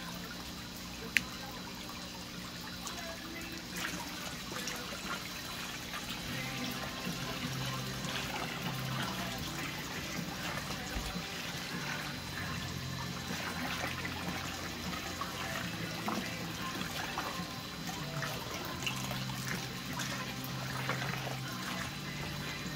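Steady splashing trickle of a small floating pond fountain aerating the water, with soft background music underneath.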